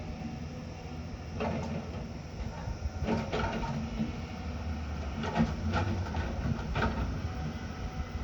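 Heavy construction machine's diesel engine running steadily, with several short metallic clanks and scrapes at irregular intervals.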